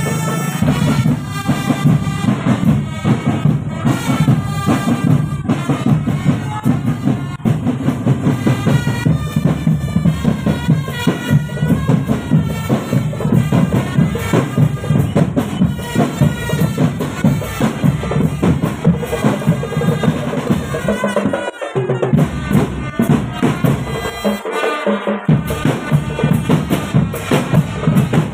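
Marching drumband playing: drums beating a steady, busy rhythm under a melody on wind instruments.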